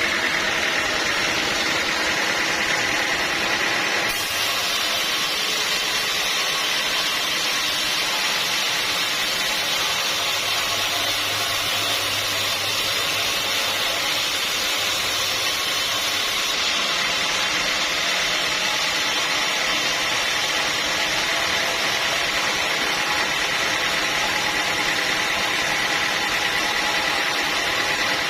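Sawmill machinery running steadily, with abrupt shifts in tone about 4 seconds and 16 seconds in.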